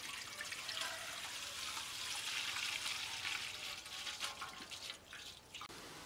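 Water poured in a steady stream into a wide metal wok, splashing as the pan fills. The pouring stops suddenly near the end.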